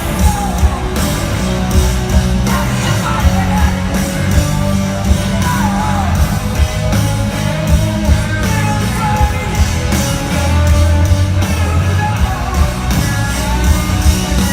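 A live rock band playing loud: a steady drum beat, distorted guitars and bass, with singing over it.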